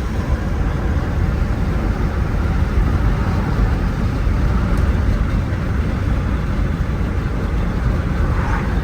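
Steady road and engine rumble heard from inside the cabin of a moving truck.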